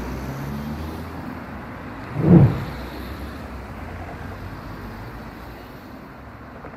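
Road traffic ambience: a steady low rumble, with one short, loud whoosh a little over two seconds in.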